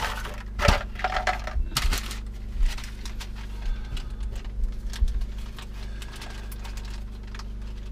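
Small hard parts and hand tools clicking and clattering as they are handled, in a handful of sharp knocks over the first five seconds, over a steady low hum.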